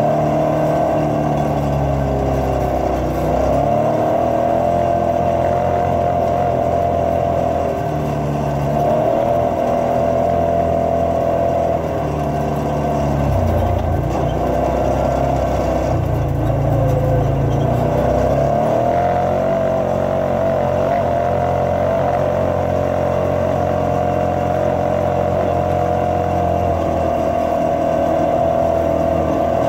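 Side-by-side UTV engine running under way, with a steady high whine over the engine note. The revs dip and climb back several times, every few seconds.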